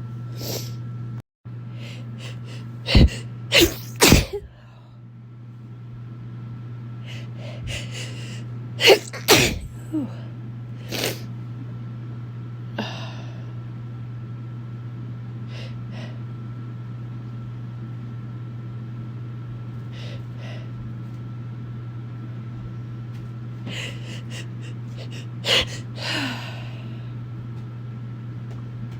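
A person sneezing in bouts: three sharp sneezes in quick succession a few seconds in, another cluster of three or four around the ten-second mark, and two more near the end. The sneezing is put down to either a cold or winter allergies. A steady low hum runs underneath.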